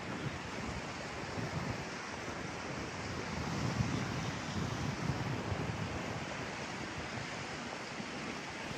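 Steady rushing of a mountain stream swollen by rain, with some wind rumble on the microphone about halfway through.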